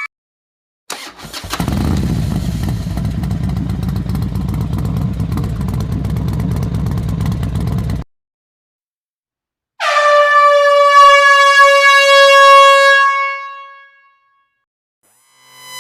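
An engine starts about a second in and runs with a fast, even pulse for about seven seconds, then cuts off abruptly. After a short silence, a loud air horn blasts for about four seconds, its pitch sagging slightly as it fades out.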